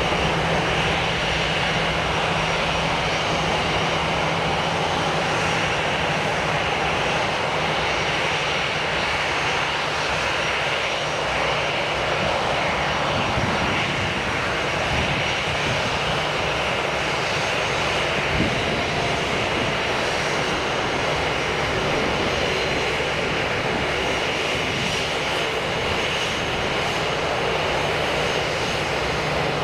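Airliner engines at close range: a loud, steady rushing noise with a high whine held throughout.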